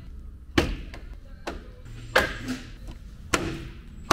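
Jeep Wrangler JK grill being pushed and snapped into place on the front of the vehicle: three loud, sharp snaps about a second or more apart, with a lighter tap between them, as its clips are pressed home.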